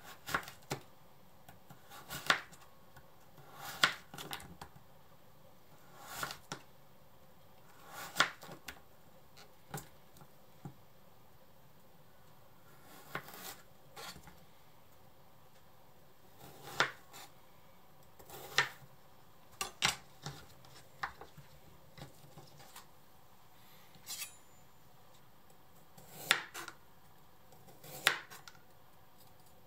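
Kitchen knife slicing daikon radish and then carrot into thin pieces, each stroke ending in a sharp knock on the cutting board, about one every second or two with short pauses between.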